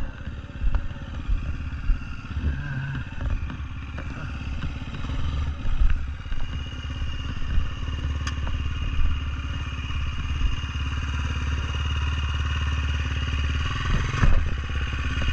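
Dirt bike engine running at low, fairly steady revs, with scattered knocks and clatter in the first few seconds.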